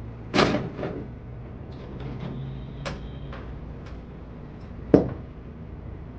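Golf balls clacking and a club head scraping as a ball is raked out of the ball tray onto the hitting mat, with faint clicks after it. About five seconds in comes one sharp click, the loudest sound.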